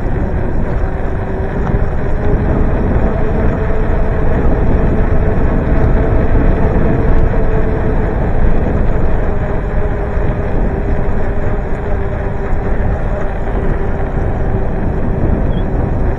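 Wind rushing over the microphone of a moving bicycle rider, with a steady low hum of a few tones running under it.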